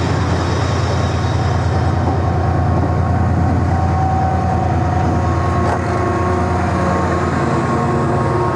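Class 68 diesel locomotive, its Caterpillar V16 engine running with a steady deep drone as the train moves past with its coaches. The engine's tones grow clearer as the locomotive comes close in the second half, with a single short click about six seconds in.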